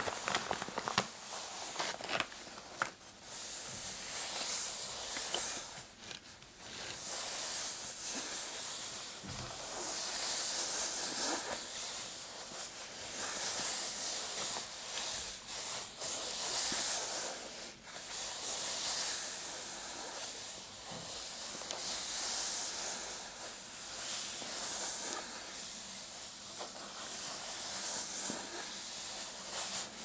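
Fingernails scratching and rubbing across the patterned fabric of a clasp purse, a scratchy hiss that swells and fades in long strokes every few seconds. A few sharp clicks come in the first couple of seconds.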